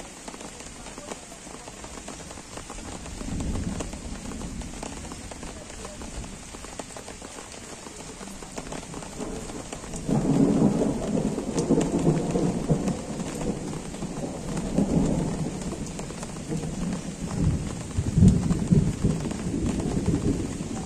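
Gentle rain falling steadily, with thunder rolling in the distance. A faint rumble comes about three seconds in, then a long, louder rumble from about halfway that swells again near the end.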